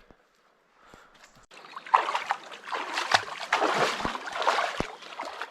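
Water splashing in irregular, loud bursts, starting about a second and a half in, as someone moves through a lake.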